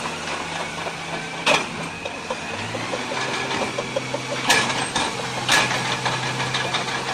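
Engine of a heavy machine running steadily, its pitch dropping slightly about two and a half seconds in. Three sharp knocks stand out: one about one and a half seconds in and two close together near the end.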